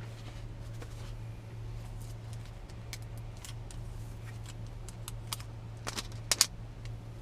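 Scattered soft clicks, taps and rustles of a boxed tablet and its packaging being handled, with a louder cluster of sharp clicks about six seconds in, over a steady low hum.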